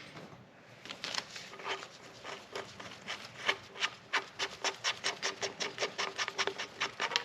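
Quick, evenly spaced metallic clicking and rasping, about five clicks a second, building up from the first couple of seconds: the exhaust valve inspection cap being turned off the 1986 Suzuki LT185's cylinder head.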